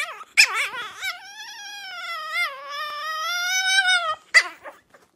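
A small dog howling: one long, wavering howl of about three seconds, with short cries just before and after it.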